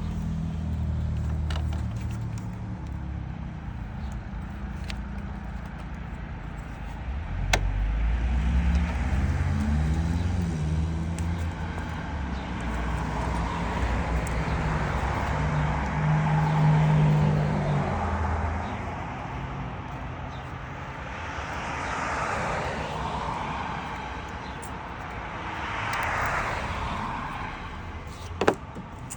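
Motor vehicles passing by, several swells of engine and tyre noise that rise and fade in turn over a low, shifting engine hum. Two sharp clicks, one about a third of the way in and one near the end.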